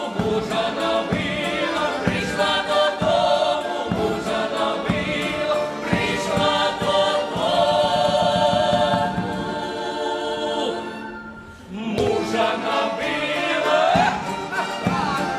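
A folk choir singing a Ukrainian folk song in several voices, with a short break about eleven seconds in before the voices come back.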